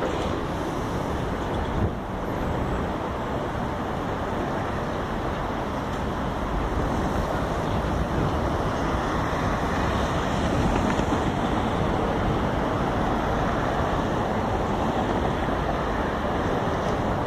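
Steady street traffic noise at an intersection, with cars passing and wind on the microphone. A brief thump comes about two seconds in.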